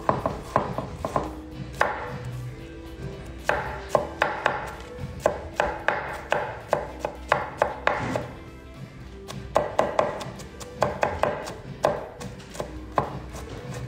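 A kitchen knife chopping an onion on a cutting board: quick runs of sharp knocks, about four or five a second, broken by short pauses.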